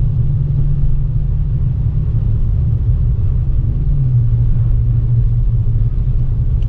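Steady low rumble of a car being driven, engine and tyre noise heard from inside the cabin. The low hum shifts slightly about four seconds in.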